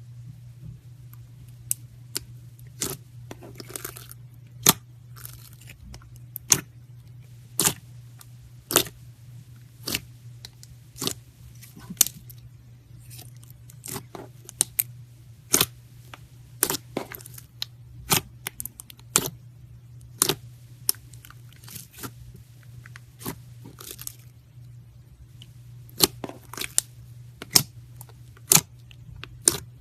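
Slime being pressed and squeezed by hand, giving sharp pops and clicks as air pockets burst, irregularly about one or two a second, with a few short crackling stretches, over a steady low hum.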